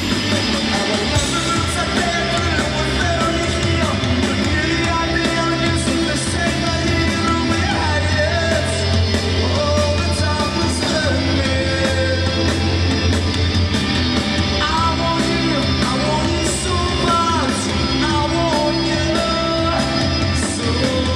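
Live rock band playing through a PA: electric guitar, bass and a drum kit, with a male lead vocal singing over it.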